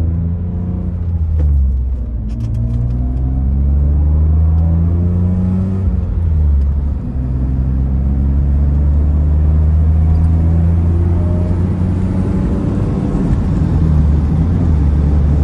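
BMW E34 525i's inline-six engine heard from inside the cabin, accelerating hard. The pitch climbs and falls back twice as it changes up through the gears, then settles into a steady cruise over road and tyre noise.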